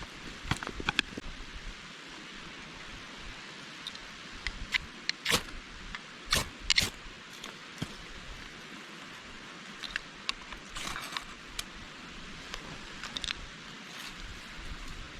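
Steady rush of a mountain stream, with irregular short clicks and scrapes scattered through it, the loudest a little past the middle.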